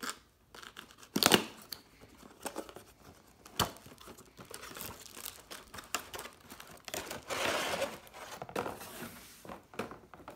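Cardboard product box being torn open by hand: a sharp tear of a flap about a second in, then scattered scrapes and clicks of cardboard, and a longer crinkling of plastic packaging from about seven to nine seconds in.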